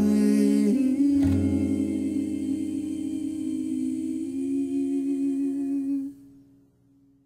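The closing bars of a song: one long held vocal note over soft accompaniment, fading out about six seconds in.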